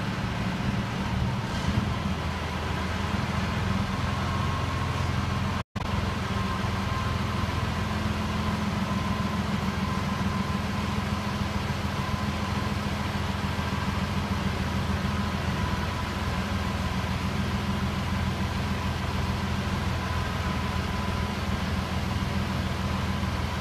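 Mobile crane's engine running steadily under load as it hoists, a low even hum with a faint steady whine above it. The sound cuts out completely for an instant about six seconds in.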